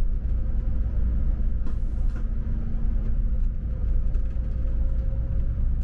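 Double-decker bus driving along a city road, heard from its upper deck: a steady, loud low rumble of engine and road, with a short hiss about two seconds in.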